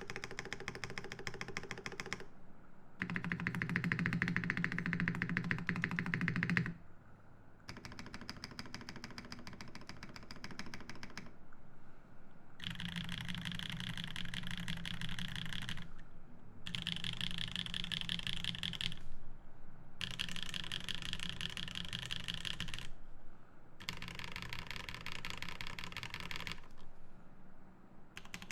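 Mechanical keyboard (Jubi, Naevy switches in an aluminium plate, GMK keycaps) keys struck in fast, evenly spaced clatters. They come in about seven runs of two to four seconds each, with short pauses between them.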